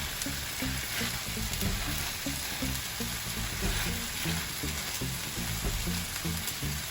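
Chicken, tomato and yogurt masala sizzling and frying in a pan as it is stirred, a steady hiss, with soft background music underneath.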